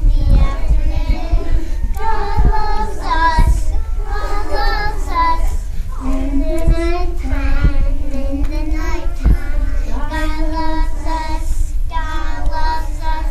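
A group of young children singing a song together in unison, in phrases of a few seconds each.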